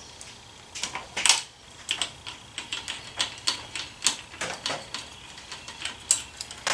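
14 mm wrench working loose the mounting nut of a motorcycle turn signal: a run of sharp metallic clicks and taps, a few a second, with a louder clack about a second in and another near the end.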